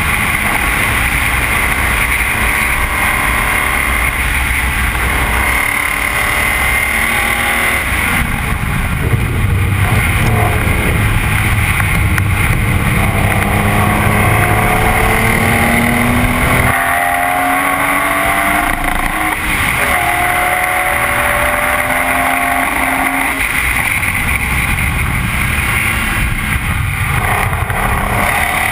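BMW E46 M3's straight-six engine pulling hard at speed, its pitch climbing and dropping back several times through gear changes, under heavy wind and road noise.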